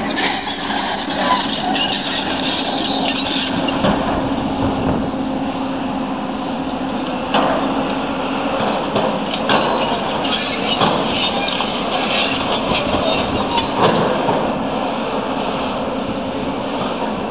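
Heavy demolition excavators breaking up a damaged concrete apartment block: steady machine noise with rubble clattering and clinking, and several sharp crashes of falling concrete in the second half.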